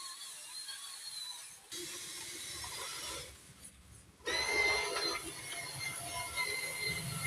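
Small electric motor whining steadily with a mechanical rattle, as from a toy vehicle's gearbox. The sound changes abruptly about two seconds in, dips, then comes back louder with a lower whine a little past halfway.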